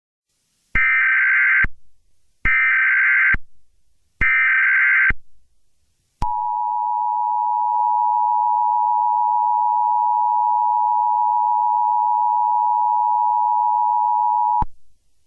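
Emergency Alert System header: three short bursts of SAME digital data tones, each about a second long with a short gap between, then the EAS two-tone attention signal held steady for about eight seconds before it cuts off.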